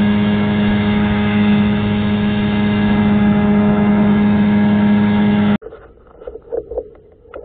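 Johnson outboard motor on an inflatable boat running steadily under way at one unchanging pitch. It cuts off suddenly about five and a half seconds in, leaving only faint knocks and rattles.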